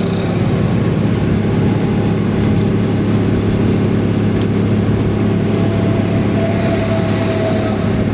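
Steady engine and road drone of a vehicle cruising at highway speed, about 65 mph, with a faint thin whine coming in near the end.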